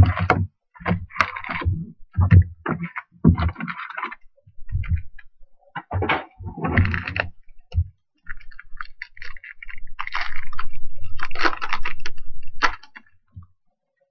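Foil wrappers of Topps Tribute baseball card packs crinkling and rustling as they are handled, with a few soft knocks of packs set down on the table. A longer crinkling tear about ten seconds in as a foil pack is peeled open.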